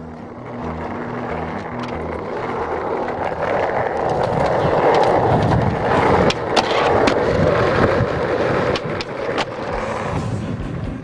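Skateboard wheels rolling over rough asphalt, the rumble growing louder toward the middle, with a few sharp clacks a little after the middle.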